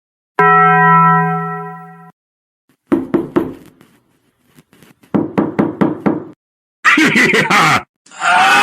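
A run of separate sound-effect clips: a held ringing tone that fades out, then two bursts of rapid knocking, a short clip with a sliding, voice-like pitch, and a sustained wavering tone that starts near the end.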